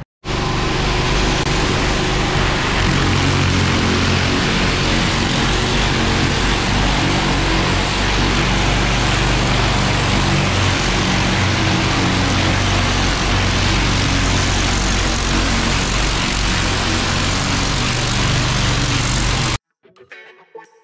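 Pressure washer spraying water: a steady, loud hiss of spray over a low machine hum. It cuts off suddenly near the end.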